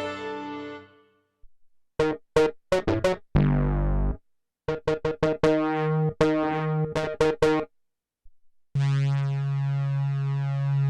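Kurzweil K2vx synthesizer preset played on the keyboard: a chord dying away, then short staccato stabs, a brief low held note, and a faster run of stabs, with a sustained chord held near the end.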